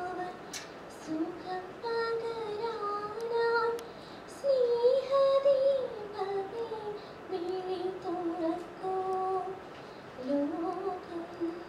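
A woman singing a prayer song solo: a slow melody with long held notes and gliding pitch.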